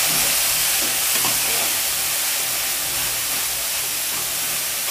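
Freshly added tomato puree sizzling in hot oil in a kadai while being stirred with a spatula: a steady hiss of wet puree frying, easing slightly over the seconds.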